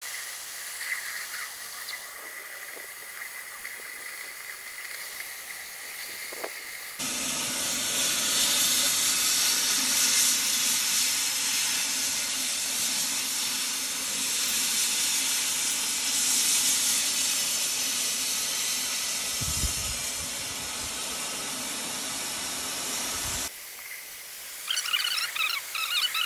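Oxy-acetylene cutting torch hissing steadily as its oxygen jet cuts through thick steel pipe. The hiss turns abruptly much louder and brighter about seven seconds in and drops back suddenly about 23 seconds in, and a few short high squeaks come near the end.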